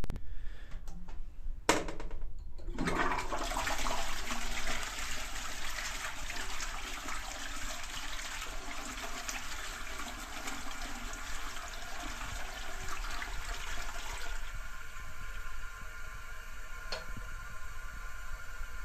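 Toilet flushing: a sharp click of the flush, then water rushing for about twelve seconds, then a quieter steady hiss with a faint tone in it.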